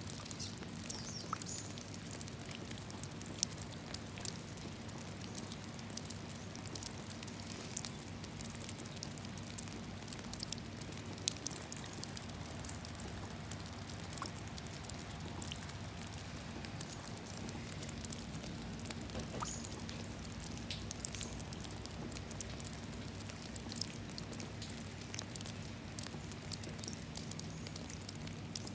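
Raindrops falling into a puddle: an irregular, steady patter of small sharp drips and splashes, over a faint steady low hum.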